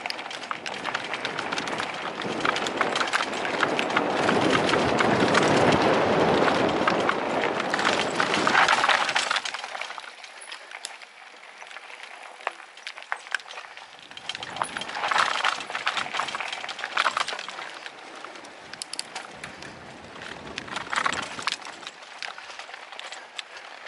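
Electric mountain bike riding fast down a dirt forest trail: tyres crunching over dirt, roots and gravel, with the bike rattling and clicking over the bumps. A rush of wind and rolling noise builds over the first few seconds and drops about ten seconds in. After that the riding is quieter, with a few short swells of noise.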